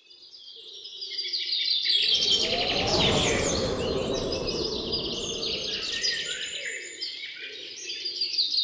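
Many small birds chirping and twittering together in a dense chorus. About two seconds in, a rushing whoosh swells under the birdsong and slowly fades.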